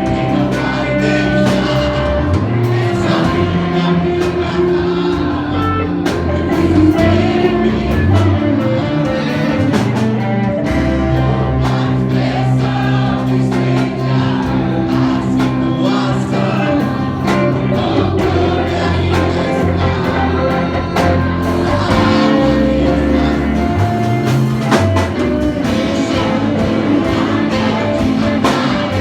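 Live gospel worship music: a band with bass, guitar and drums playing under singing with choir-like voices.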